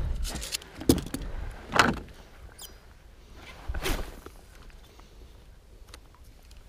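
A few knocks and thuds from a fish and tackle being handled on the deck of a plastic fishing kayak, clustered in the first two seconds. A short rushing noise follows about four seconds in.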